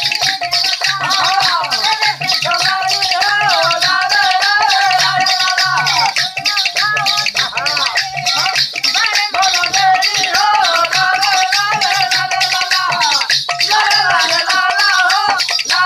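Upbeat folk-style music: a bending, ornamented melody line over a continuous shaker-like rattle and a steady low drum beat.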